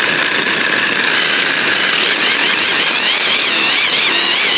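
Electric hand blender's chopper attachment running, grinding chunks of parmesan cheese. The motor's whine rises in pitch about two seconds in as the cheese breaks down, then wavers up and down.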